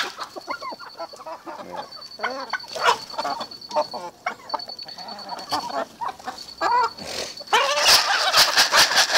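A backyard poultry flock of Índio Gigante chickens with a turkey and geese calling: many short clucks and squawks rising and falling in quick succession. A loud, rough crackling rush of noise comes in near the end.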